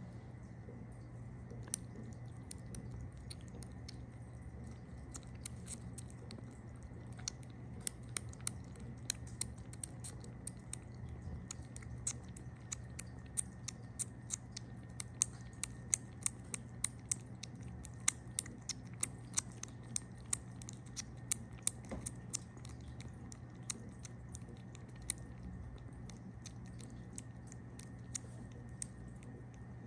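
A young kitten suckling milk from a feeding bottle's rubber nipple: quick, wet sucking clicks, about two or three a second, thinning out near the end, over a low steady hum.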